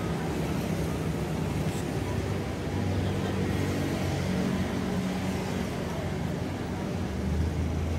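Road traffic going past: a steady low engine rumble that swells about three seconds in and again near the end.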